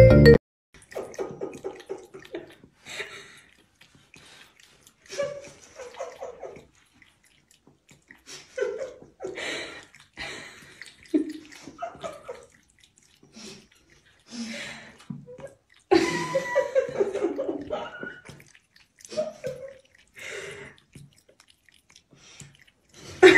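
Water from a bathroom sink faucet splashing and trickling in irregular short spurts as a cat laps at the stream.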